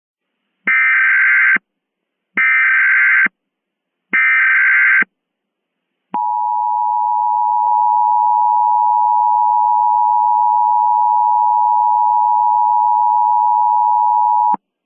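Emergency Alert System (EAS) alert tones: three short bursts of SAME header data tones, about a second each, then the steady two-tone EAS attention signal held for about eight seconds. It ends abruptly. Together they mark the start of an emergency alert broadcast.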